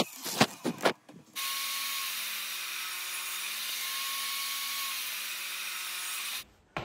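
A few sharp knocks in the first second, then a portable table saw running steadily as a plywood panel is fed through the blade. The saw sound cuts off suddenly shortly before the end.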